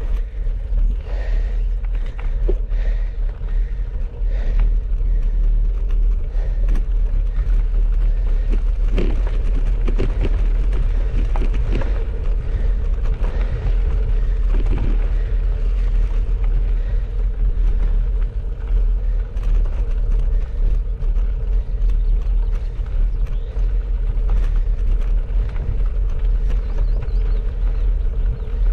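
Bicycle riding a gravel track: steady low wind rumble on the microphone and tyre noise, with scattered clicks and rattles, most of them in the middle stretch.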